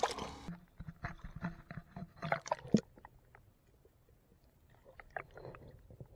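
A splash as a small snook is let go into the water, then the sound goes muffled underwater: irregular gurgles and knocks for a couple of seconds, dying down to a quiet hiss with a few faint taps near the end.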